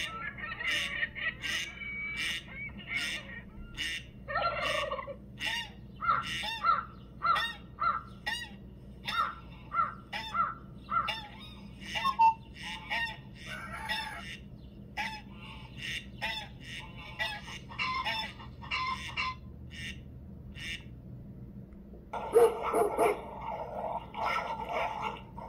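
Recorded bird calls played back: a long run of short chirping calls, about two a second. About 22 seconds in, it switches to a recording of a dog vocalizing.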